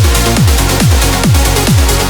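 Background electronic dance music with a steady kick drum at about two beats a second.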